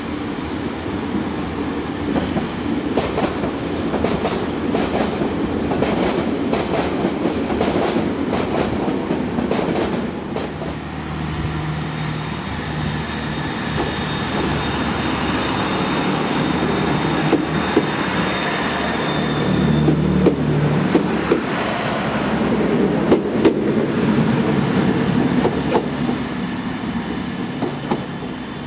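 Diesel multiple units moving past: underfloor diesel engines running, with the wheels clicking over rail joints and a thin high whine partway through.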